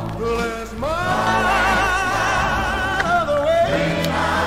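Background music: a song whose singer holds one long note with vibrato from about a second in, then sings lower phrases near the end, over a steady band accompaniment.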